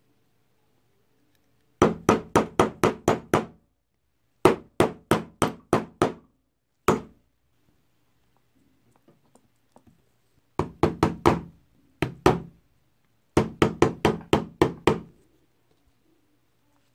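Hammer tapping in quick bursts of several sharp blows, about five a second, with pauses and a few single blows between.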